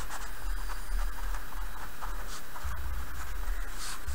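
Pen writing on paper, a few short scratchy strokes, over a steady low hum.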